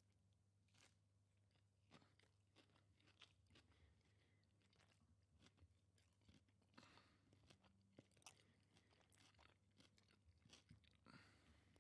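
Near silence, broken by faint, irregular crunching of someone chewing a snack close to the microphone.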